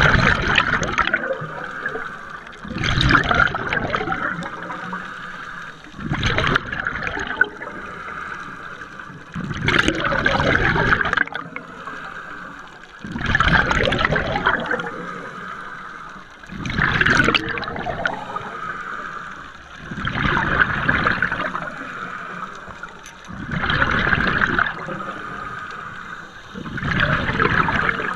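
Scuba diver breathing through a regulator underwater: a bubbling exhalation about every three and a half seconds, with a softer hiss between breaths.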